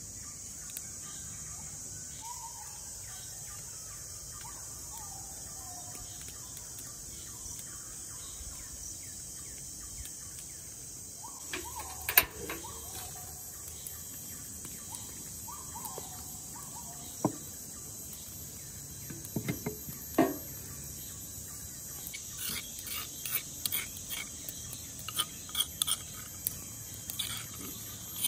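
A steady high chirring of insects, with a few short bird chirps, under scattered sharp knocks of kitchen utensils against hard surfaces; the loudest knocks come about twelve and twenty seconds in. Over the last few seconds a metal spoon scrapes and taps quickly against a stone mortar as chili spice paste is scooped out into a frying pan.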